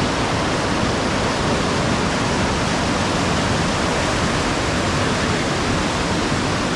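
Fast mountain river rushing over boulders in white-water rapids: a loud, steady, unbroken rush of water.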